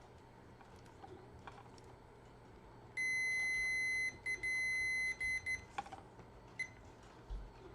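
Multimeter continuity beeper: a steady high beep for about a second, then several short broken beeps and one more brief beep near the end, the meter signalling a closed circuit between the probe points on the battery module's cells.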